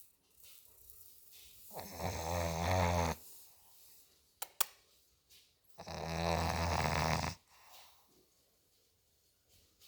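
Olde English Bulldog puppy snoring in its sleep: two long, low snores about four seconds apart, each lasting about a second and a half, with quiet breathing between them. Two short, sharp clicks come in the gap between the snores.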